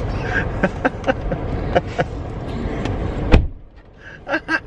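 Road rumble inside a moving car's cabin, with a string of knocks and clicks from the camera being handled and one sharp thump a little over three seconds in. After the thump the rumble drops away and a few short taps follow.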